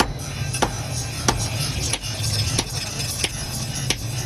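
Sharp knocks at an even pace, about one every two-thirds of a second, over a steady low hum.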